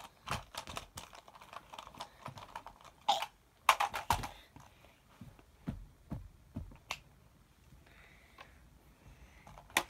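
Irregular light taps and knocks of toys being handled and bashed together in play, with a louder cluster of knocks about three to four seconds in.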